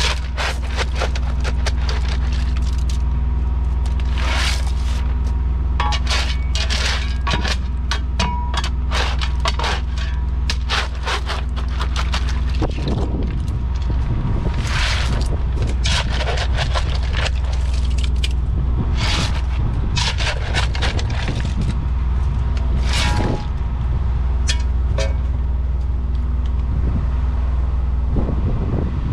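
An engine running steadily with a low hum, with a string of scrapes and rustles over it.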